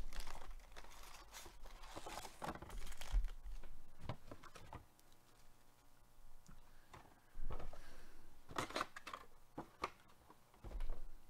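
Gloved hands opening a cardboard trading-card hobby box and handling its foil-wrapped card packs: irregular bursts of handling noise, with a quieter stretch midway.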